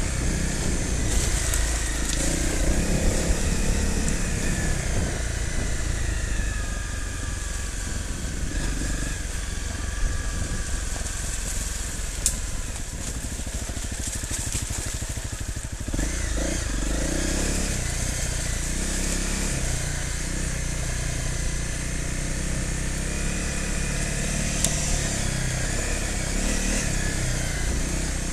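Off-road motorcycle engine running at low, varying revs as it rides a rough dirt lane, the note picking up a little over halfway through, with a few sharp clicks.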